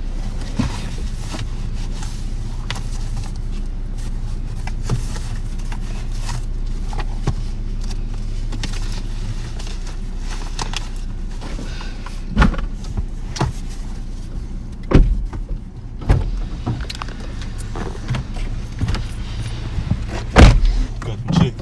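Car engine idling steadily, heard from inside the car, with a handful of knocks and thumps in the second half, the loudest about twenty seconds in.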